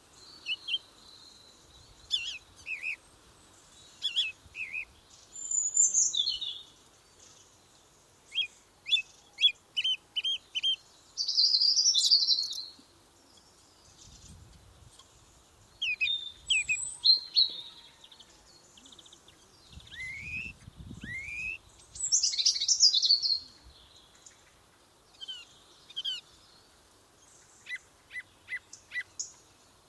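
Several wild birds singing and calling: short high chirps and quick trills throughout, with longer, louder song phrases about a third of the way in and again about three quarters of the way in.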